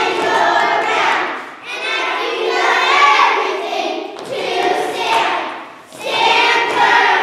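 A group of young children singing together in a large hall, in phrases with short breaks between them.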